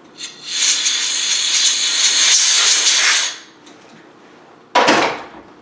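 Compressed-air blow gun blasting chips off a milled part in a mill vise: a loud, steady hiss lasting about three seconds, then a short loud burst near the end.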